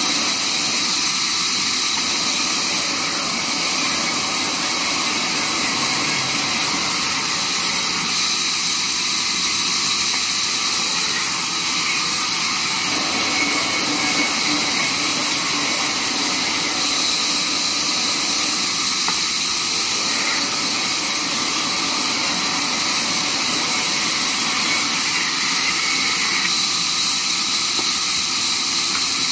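Large vertical band saw running steadily while wooden planks are fed through its blade, a continuous loud hiss of the blade cutting wood.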